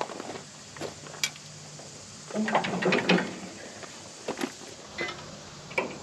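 Metal clicks and clinks of a hand wrench turning an adjustment bolt on a Wood-Mizer LT15 sawmill's blade guide arm while the arm is being levelled. There are scattered single clicks, with a busier run of clicking a little before halfway.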